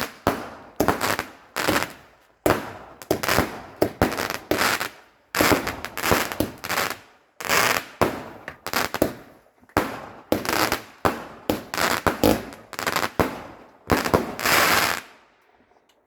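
Fireworks going off in quick succession: a long volley of sharp bangs and crackles, a few each second, that stops abruptly near the end.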